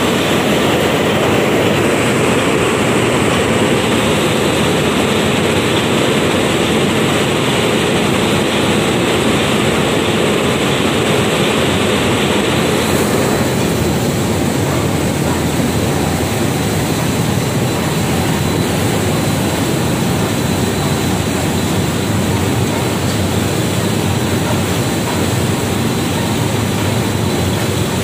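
A 78-inch super jumbo textile dyeing jigger running, cloth winding between its rollers through the dye bath: a loud, steady mechanical din with a faint steady high whine. Its tone changes a little about halfway through.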